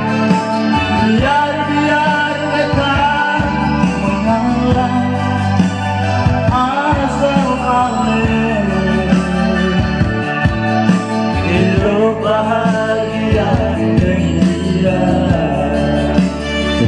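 A man singing a song into a handheld microphone, his voice gliding between notes over a loud musical accompaniment.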